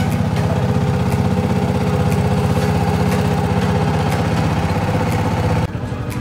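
A motorboat's engine running steadily while the boat is under way, with scattered clicks over it. Near the end the level drops suddenly and the engine note changes.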